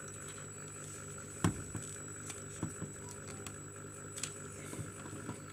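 Light clicks and knocks of plastic and metal as the OPC drum of an HP LaserJet Pro M102A toner cartridge is worked loose and lifted out, with one sharper click about a second and a half in and a few softer ones after. A faint steady hum runs underneath.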